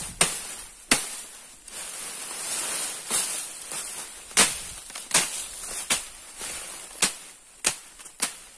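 Footsteps crunching through dry leaves and twigs: about nine sharp snaps at walking pace, over a steady high hiss.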